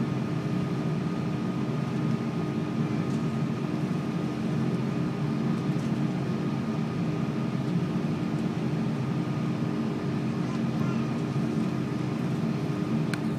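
Cabin noise inside an Airbus A330-300 taxiing: a steady low rumble from the engines at taxi power, with a constant hum and a faint higher steady tone running through it.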